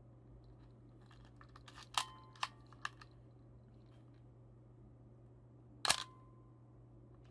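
Nikon EM 35mm SLR being worked: a quick run of smaller mechanical clicks about two to three seconds in, then the shutter fires once near six seconds with a sharp clack and a short metallic ring.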